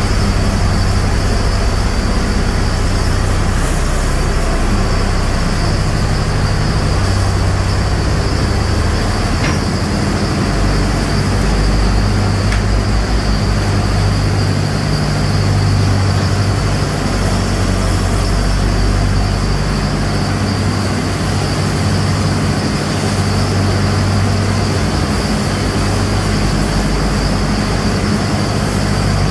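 A tractor-driven straw blower runs steadily, shredding a straw bale and blowing the straw out as bedding: a constant low engine drone under an even hiss of blown straw.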